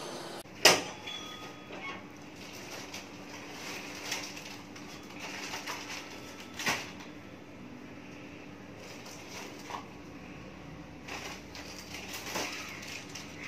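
Quiet room noise with a faint steady hum, broken by a sharp knock about a second in and scattered lighter knocks and rustles: grocery packets being taken out of a shopping bag and handled.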